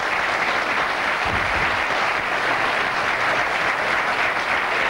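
Studio audience applauding steadily, many hands clapping at once.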